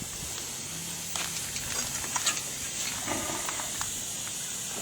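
Steady background hiss with a few faint, short clicks about one, two and three seconds in.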